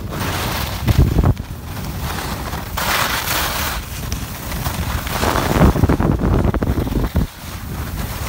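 Wind buffeting the microphone while moving downhill on skis, over the hiss and scrape of skis sliding on packed snow, the scraping loudest about three seconds in and again past five seconds.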